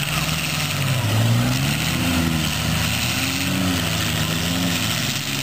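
Several demolition-derby car engines revving at once, their pitch rising and falling as the cars push and spin their wheels in the dirt.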